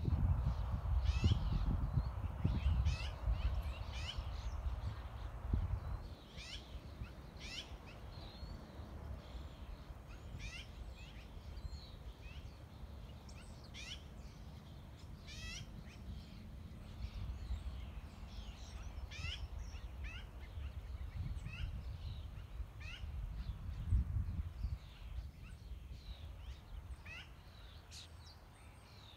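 Birds calling: many short, high chirps falling in pitch, repeated throughout. Wind buffets the microphone as a low rumble in the first six seconds and again about 24 seconds in.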